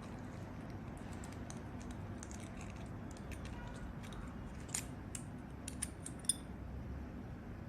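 Light clicks and taps of small parts as the automotive lock pick decoder's core part is fitted back into its shell, with a few sharper clicks in the second half.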